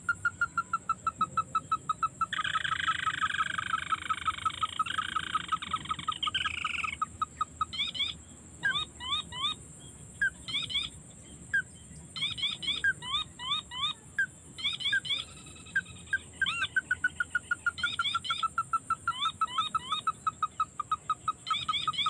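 Ruddy-breasted crake calling: a fast run of short, rising notes, several a second. A few seconds in there is a denser, harsher stretch. Midway the calls break into short bursts, and near the end a steady fast series resumes.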